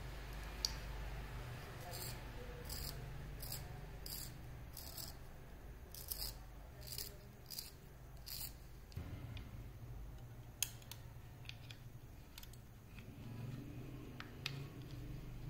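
Wooden pencil being sharpened in a small handheld plastic sharpener: a run of short scraping strokes, about one or two a second, as the blade shaves the wood. Toward the end come a few scattered light clicks of plastic being handled.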